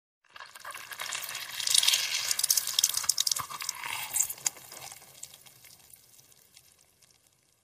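Ripe strawberries squelching and crackling as a fist slowly crushes them. The sound builds to its loudest about two seconds in, then fades away over the next few seconds.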